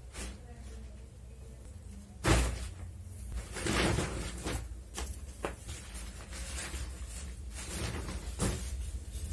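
Handling of a fabric laundry basket and its packaging: a loud thump about two seconds in, then rustles and light knocks.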